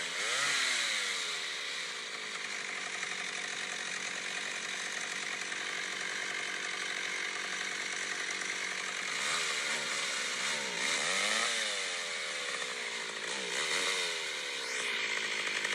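Chainsaw running, its engine revved up and down several times: about a second in, and again repeatedly between about nine and fourteen seconds.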